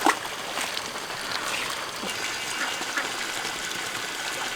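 Steady trickling of water running into the fish pond, with one sharp click right at the start.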